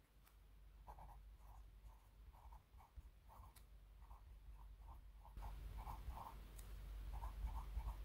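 Rotring 800 0.5 mm mechanical pencil writing on paper: faint scratching of the lead with small soft taps a few times a second. The pencil is held rotated, so its tip mechanism barely clicks. The sound grows louder about five seconds in as the volume is boosted.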